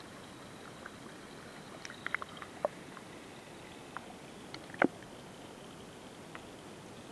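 Underwater sound of a pond, heard through a GoPro's waterproof housing: a steady muffled hiss with scattered sharp clicks and pops, a small cluster about two seconds in and the loudest a little before five seconds.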